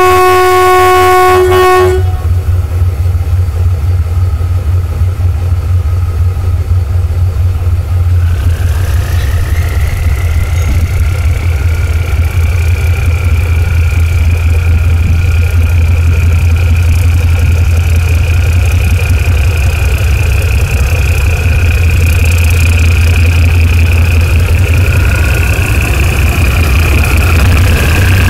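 Diesel locomotive horn sounding a chord that cuts off about two seconds in, followed by the locomotive's heavy diesel engine running steadily. About eight seconds in, a high whine rises and then holds steady over the engine.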